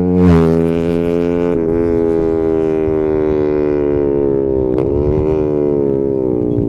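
Yamaha XSR 155's single-cylinder engine running through an SC Project 270mm aftermarket exhaust, a loud steady drone held at a fairly constant rpm, dipping slightly in pitch twice.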